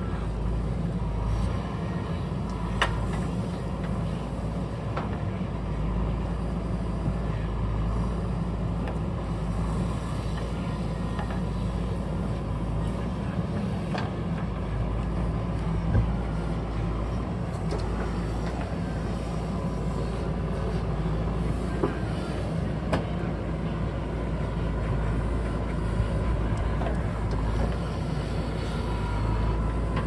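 JCB backhoe loader's diesel engine running steadily as the machine works, with a few short sharp knocks, the loudest about halfway through.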